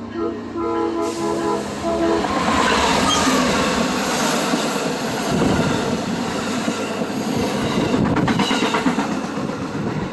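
Amtrak Maple Leaf passenger train passing close by at speed: a loud, steady rush of wheels on rails with clattering over the track joints, strongest in a quick run of clicks about eight seconds in. Background music fades out in the first second.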